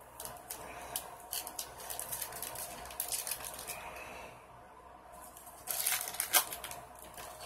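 Trading cards handled and laid down on a wooden tabletop, a run of light clicks and slaps, then the foil wrapper of a card pack crinkling and tearing open about six seconds in, the loudest sound.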